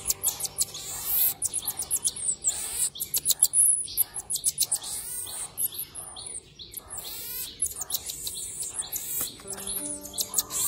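Baby marmoset making many quick, very high-pitched chirps and squeaks in rapid succession.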